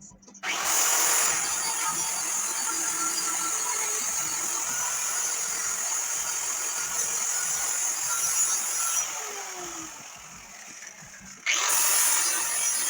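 Angle grinder working the steel of a truck frame: it starts about half a second in, winds down with a falling whine around nine seconds in, and starts up again near the end.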